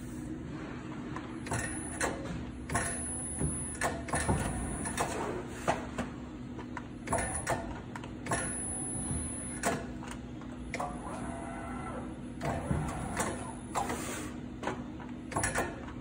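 Cidan Combi Beam CNC sheet-metal folder at work: a steady hum runs under repeated clicks and clunks as the sheet is positioned and folded. A high whine comes and goes in short runs as the machine moves.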